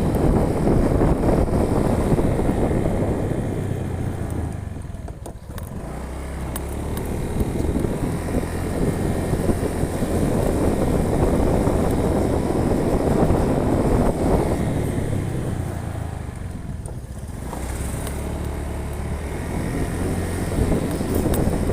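Vehicle engine and road noise on the move, a steady low engine hum under a heavy rumble, which eases off twice, about five seconds in and again near the end, before picking up again.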